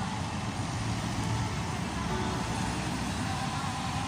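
Steady road traffic: cars and motorcycles passing below with an even rush of engine and tyre noise and a low drone.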